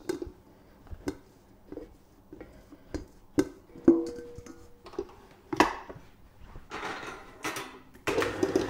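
Utensil knocking and clinking against stainless steel bowls as cottage cheese is scraped into a commercial planetary stand mixer's bowl: single ringing knocks, irregular, about a second apart. About eight seconds in, the stand mixer starts up and runs steadily, beginning to beat the curd.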